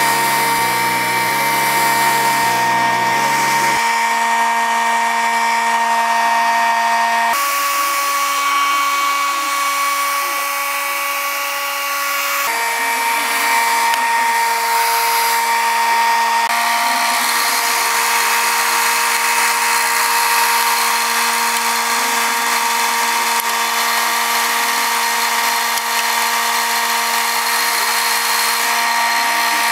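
AEG electric hair dryer running, its motor whining steadily over a rush of blown air. The pitch of the whine shifts to a new level twice, at about 7 and 12 seconds in.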